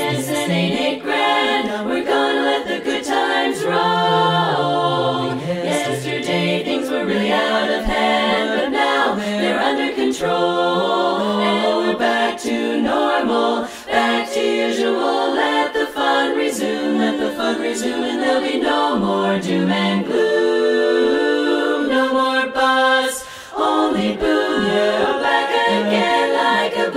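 Women's a cappella chorus singing in close harmony, with a brief pause for breath about halfway through and another near the end.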